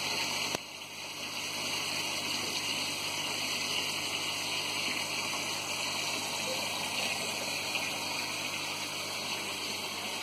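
Steady rush of moving water from an aquarium's filter and aeration, an even hiss with a brief dip about half a second in.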